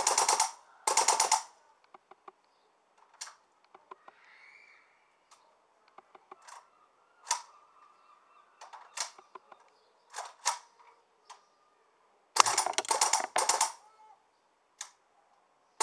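WE L85A2 gas blowback airsoft rifle firing on full auto: two short rapid bursts at the start, scattered single pops through the middle, then a longer burst about twelve seconds in. The short, uneven strings fit the weak cycling that the shooter put down to the gas running out and the cold making the bolt stick.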